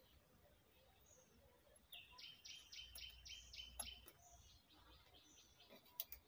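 Faint bird song: a quick run of about six high repeated notes about two seconds in, then fainter notes, against near silence. Two sharp clicks, the louder near the end.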